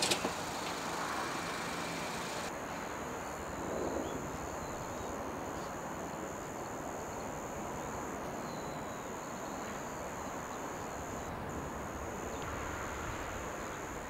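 A steady high-pitched insect trill over a constant outdoor background hiss, starting a couple of seconds in and holding an even pitch throughout. A couple of sharp clicks sound at the very start.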